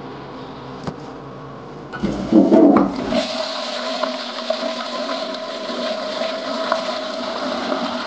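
Western-style toilet flushing: a click about a second in, then a sudden loud gush of water about two seconds in that settles into a steady rush with a held tone as the bowl drains and refills.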